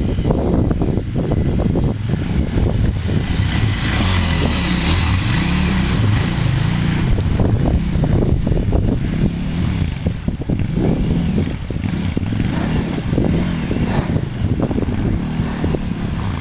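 KTM 990 Adventure's V-twin engine pulling through water, the throttle rising and falling as the bike passes, with the wheels splashing through the flooded track.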